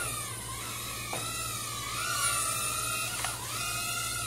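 JJRC H20 nano hexacopter's six small coreless motors whining as it hovers and spins in yaw. The pitch wavers and dips briefly twice as the throttle changes.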